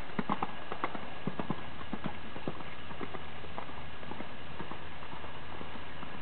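Pony's hooves cantering on a wet sand arena: dull hoofbeats, loudest in the first second and a half as it passes close, then fainter as it moves away.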